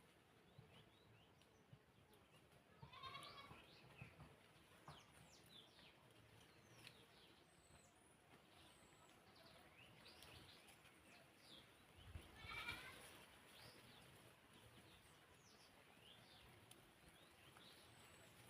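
Faint bleating of a goat, twice: once about three seconds in and again about twelve seconds in, each call wavering. Faint short bird chirps come and go throughout.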